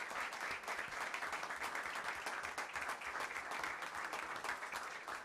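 A roomful of people applauding: many hands clapping together, steady throughout.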